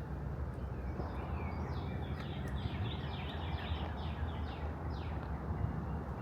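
A songbird singing a quick run of repeated falling notes for a few seconds, over a steady low outdoor rumble.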